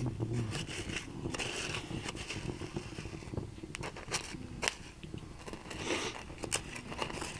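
Corn cobs roasting in hot grit in a pan over a wood fire: irregular crackles and sharp clicks, with gritty scraping as a hand turns the cobs in the grit.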